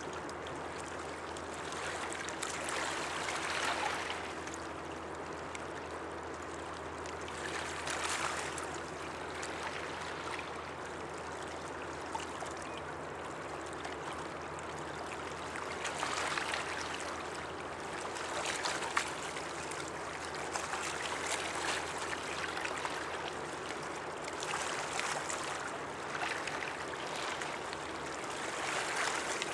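Water washing and lapping, swelling into surges every few seconds, over a steady low hum.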